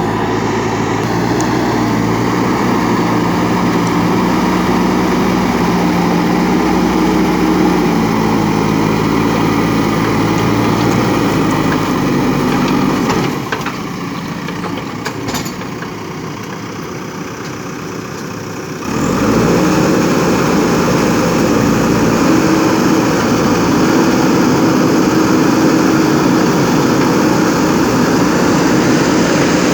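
JCB 3DX backhoe loader's diesel engine running while working, its pitch rising and falling. It drops back and goes quieter about 13 seconds in, then comes back up suddenly about 19 seconds in.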